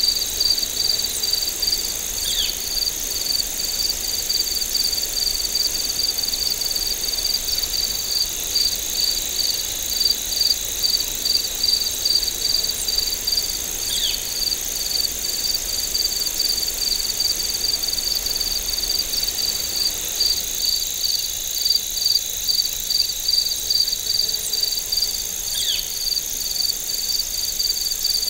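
Crickets chirping in a fast, even rhythm over a steady high-pitched insect drone, with a short falling call three times, about eleven seconds apart.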